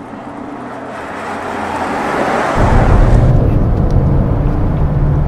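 Mercedes-Benz GLB 220d driving past, its engine and tyre noise swelling as it approaches. About two and a half seconds in, this changes suddenly to a steady low rumble of the 2.0-litre four-cylinder diesel and road noise heard from inside the cabin.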